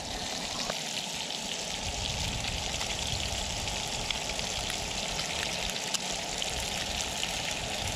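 Hamburger patties sizzling steadily in a cast-iron skillet, with small crackles and pops from the hot fat.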